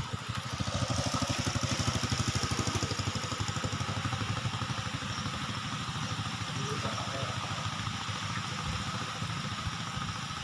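An engine idling steadily with a fast, even low pulse, over a constant hiss.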